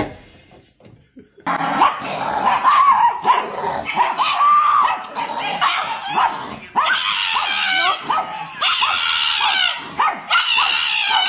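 Pug vocalizing in a rapid run of short, high, wavering yips and bark-like howls, starting about a second and a half in after near quiet.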